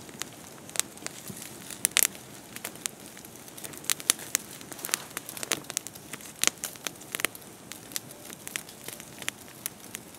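Wood campfire crackling, with frequent sharp, irregular pops over a faint hiss.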